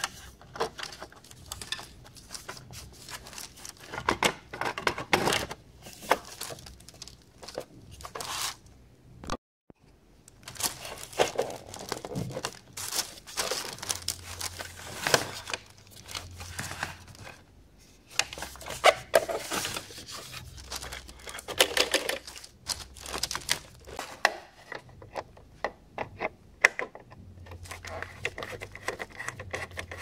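A rotary dial telephone being handled and reassembled: its plastic shell and metal base plate clicking, scraping and rattling in irregular clusters, with a short break a little after nine seconds.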